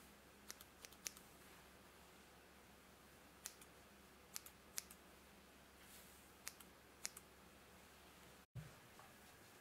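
Hairdressing scissors snipping at a lock of long hair: sharp metallic snips in small quick clusters of two to four. A short dull bump near the end.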